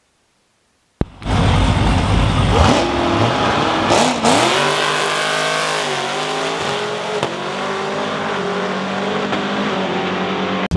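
Drag-racing car engines cutting in suddenly about a second in, revving with the pitch climbing and dropping a few times, then running more steadily at a high idle.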